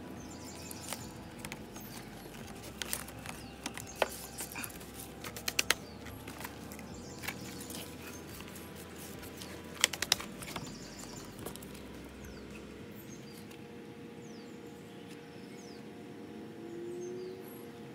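Scattered light clicks and knocks of PVC conduit pipe and fittings being handled and fitted together, the loudest about four, five and a half, and ten seconds in, over a faint steady hum.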